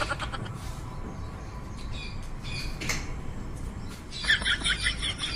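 Small birds chirping in the background, with a run of quick, high chirps starting about four seconds in, and a few faint clicks.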